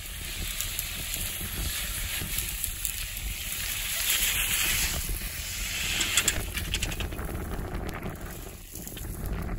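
Suzuki Jimny's 1.5-litre four-cylinder petrol engine running as the car crawls over a steep, grassy slope, with crackling and hissing from dry grass and dirt under the tyres.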